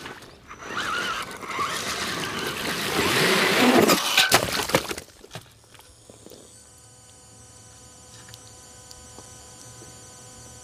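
RC rock crawler's tyres churning and breaking through creek ice, its electric motor whining, with loud cracking and crunching of ice peaking about four seconds in. After about five seconds the sound drops away to a faint steady hum.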